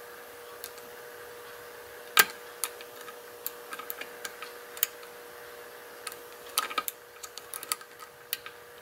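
Lock pick and tension wrench working the pins of a modified six-pin pin-tumbler challenge lock: scattered small metallic clicks and ticks, the loudest about two seconds in and a cluster near the end, as pins are probed and set.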